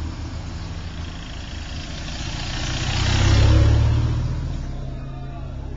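A car drives past: its engine and tyre noise grow louder to a peak about three and a half seconds in, then fade away.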